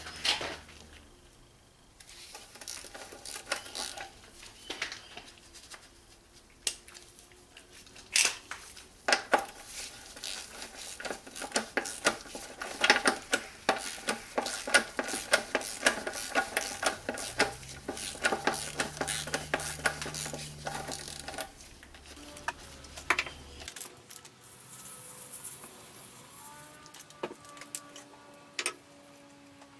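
Ratchet wrench with a 21 mm socket clicking rapidly and irregularly as it undoes the steel sump drain plug, with metal clinks. After about 22 seconds it goes much quieter while the oil drains from the sump.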